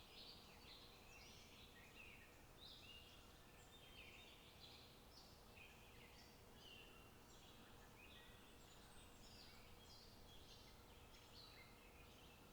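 Faint chorus of small birds chirping, many short calls overlapping, over a low steady background hiss.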